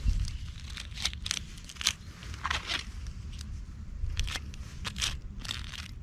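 Irregular short crackles and crunches of hands handling a slotted plastic hive varroa tray and a lump of beeswax, over a steady low rumble.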